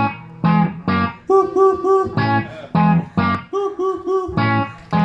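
Guitar music starts suddenly and loudly: struck chords alternating with a short, quickly repeated riff.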